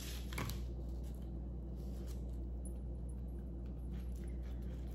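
Steady low room hum with faint rustling of ribbon and felt being handled and pressed down. A soft knock about half a second in, as a hot glue gun is set down on the table.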